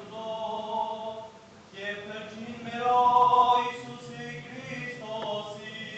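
Armenian liturgical chant sung by voices in long held notes. It breaks off briefly about a second and a half in, and the loudest phrase comes around the middle.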